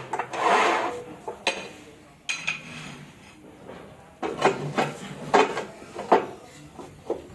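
Ceramic tiles being handled and cut: a short scrape about half a second in, then a run of sharp knocks and clinks of hard tile on tile or metal.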